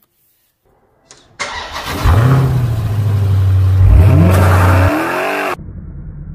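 An engine revving loudly: it starts about two seconds in with a quick rise in pitch, holds a steady note, then climbs again before cutting off suddenly, leaving a quieter steady hum.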